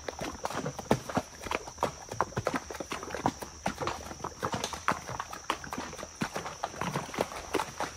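Horse hooves clopping at a walk over the stones of a wet, rocky creek bed: a steady run of irregular knocks, several a second.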